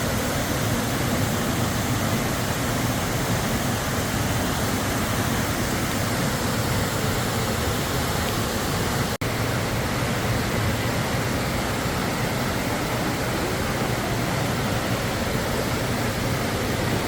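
Waterfall rushing: a steady, loud roar of falling water that cuts out for an instant about halfway through.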